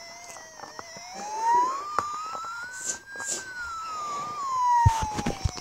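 A siren wailing slowly, its pitch gliding down, rising to a peak about three seconds in, then falling again. A few low thumps come near the end.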